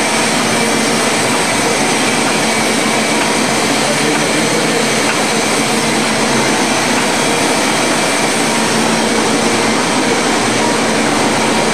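KBA Rapida four-colour B2 sheetfed offset press running at production speed while printing. It makes a loud, steady mechanical noise with several constant hum tones running through it.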